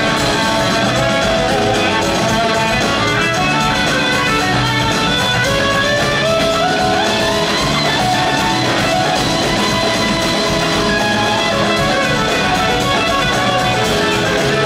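A live rock band plays an instrumental passage: two electric guitars, one a Gibson SG and one a Stratocaster, over bass and drums. The lead guitar line glides up in pitch about six seconds in.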